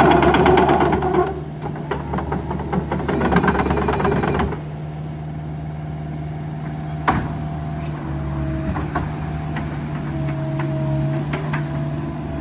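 Kubota RX-505 mini excavator's diesel engine running steadily. For about the first four and a half seconds it is louder, with a dense rattling, as if working. It then settles to a lower, steady run with scattered clicks and a few brief squeaks.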